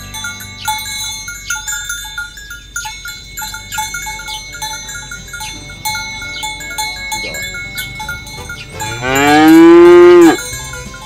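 A cow moos once, loudly, near the end, a call of about a second and a half that rises and then falls in pitch. Background music with light chiming notes plays throughout.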